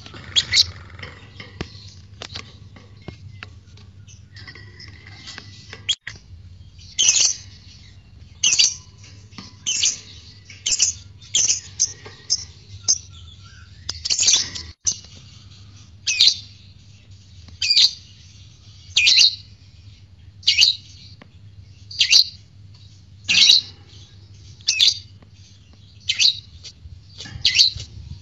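Lovebird giving short, shrill, high-pitched chirps, faint at first, then loud and regular from about seven seconds in, roughly one a second.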